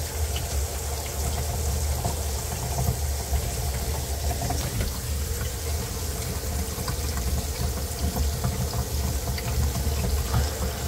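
Kitchen faucet running, with water rushing down through the sink's basket-strainer drain and pipes under the sink: a steady flow as the freshly resealed drain is tested for leaks.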